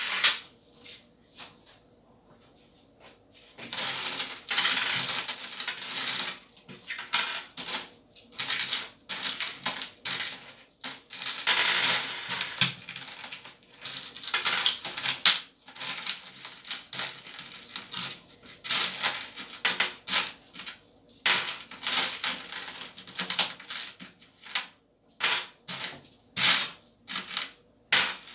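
Loose coins clinking and jingling as a hand sorts through a heap of them in a plastic bowl and sets them down on the table to count, with longer runs of continuous rattling about four and twelve seconds in.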